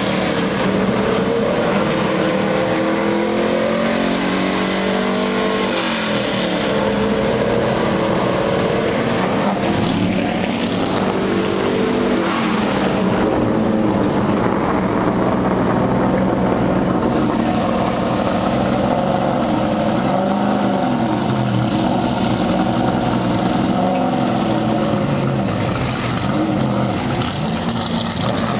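NASCAR Sprint Cup stock cars' pushrod V8 engines rumbling at low speed with repeated throttle blips, several engines at once, their pitch rising and falling as they roll past.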